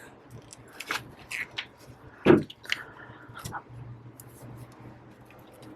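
Adhesive under an iPad Pro 12.9's glass crackling and splitting as a razor blade pries the screen away from the metal frame: scattered small clicks and snaps, with one sharper snap about two seconds in.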